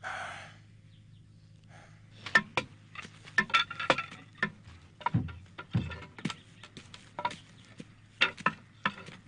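Irregular knocks and clatter of wooden posts and poles being handled and set in place, some clicks sharp and a few heavier thuds. A brief hiss fades out at the start, and a faint low hum runs underneath.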